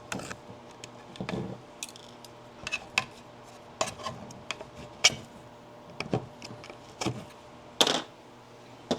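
Tree supports being snapped and pried off 3D-printed plastic parts with pliers: irregular sharp plastic clicks and snaps, about one a second.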